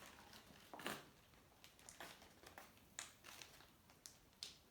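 Faint, brief crinkles and rustles of a clear plastic bag being handled while hair gel is squeezed into it from a tube.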